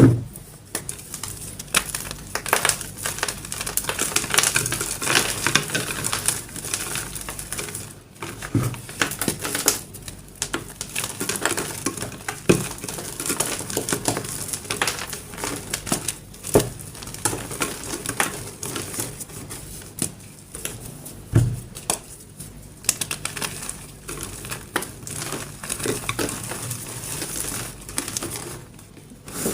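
Crunchy dyed gym chalk being crushed: a steady run of crackling and crumbling, with a few louder single cracks every several seconds and brief pauses between handfuls.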